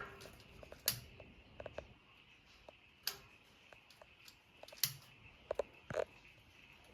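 Kindling fire crackling in a newly lit wood heater on its first burn: irregular sharp pops and snaps, about a dozen, the loudest about one, three and five seconds in.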